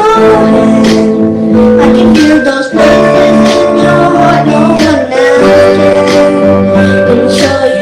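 A song: singing over instrumental accompaniment.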